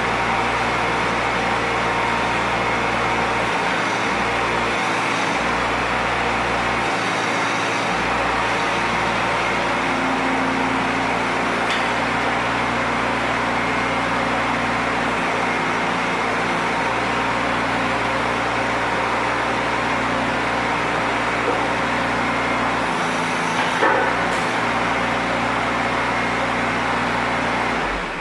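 Bobcat 418 mini excavator's diesel engine running steadily, with a few small changes in tone along the way and a brief knock about 24 seconds in. The sound drops away abruptly near the end.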